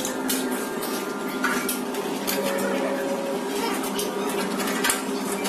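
Irregular clinking and knocking of metal printer-frame parts being handled and fitted together during assembly, over a steady low hum.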